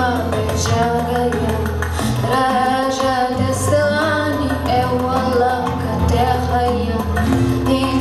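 A woman singing into a handheld microphone, with long held notes, over an instrumental accompaniment with a steady bass, amplified through stage speakers.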